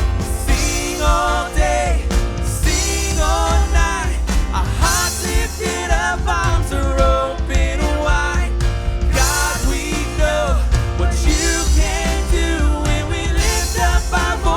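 Live worship band playing a rock-style song, with drums, bass and keys under a sung melody.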